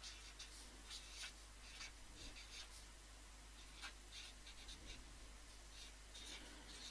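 Faint strokes of a black felt-tip marker writing on white card: short, irregular scratches as letters are formed.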